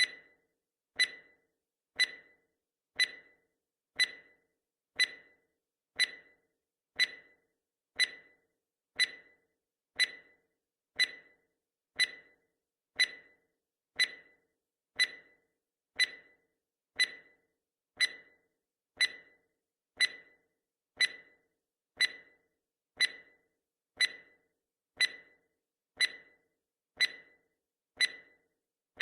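Clock tick sound effect marking each second of a countdown timer: one sharp tick a second, perfectly even.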